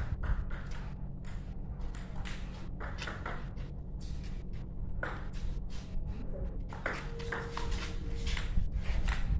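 A table tennis ball clicking against paddles and the table in a series of sharp taps, about two a second, over a steady low hum.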